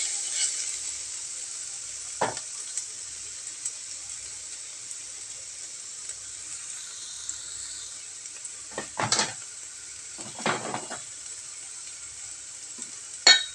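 Beech mushrooms sizzling steadily in a hot nonstick frying pan, with a few short scrapes and knocks of a wooden spatula against the pan.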